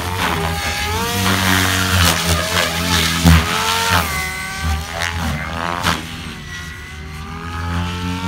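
Electric RC helicopter, a Goblin Kraken with an Xnova brushless motor, flying hard 3D aerobatics: the whine of the motor and rotor blades rises and falls in pitch with each manoeuvre. It grows fainter about six seconds in as the helicopter flies farther off, then builds again near the end.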